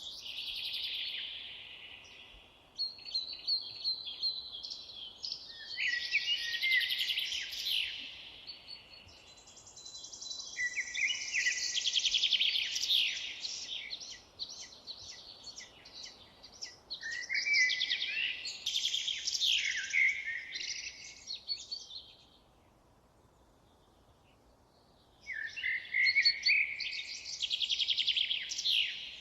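Songbird singing: rapid, high-pitched, warbling phrases a few seconds long, repeated with short pauses, and a longer pause about three quarters of the way through.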